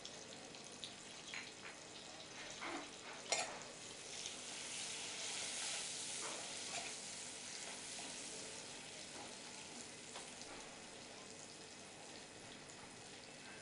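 Butter and jaggery sizzling gently in a metal kadai as the jaggery melts over a low flame, swelling a little in the middle. A metal spoon stirs them, with a few clicks and scrapes against the pan in the first few seconds, the sharpest about three seconds in.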